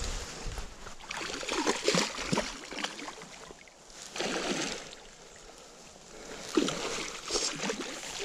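Water splashing and sloshing as a hooked pike thrashes at the surface close to the bank, in several bouts.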